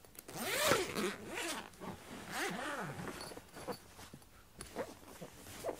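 Zipper on a padded guitar gig bag being pulled along its track: two long zips, then a few shorter tugs.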